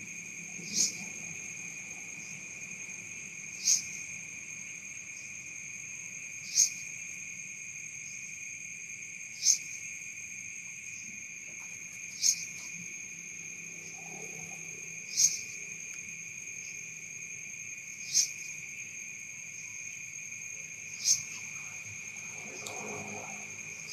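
Night insects: a steady high-pitched cricket trilling, with a sharper, louder chirp repeating at an even beat about every three seconds.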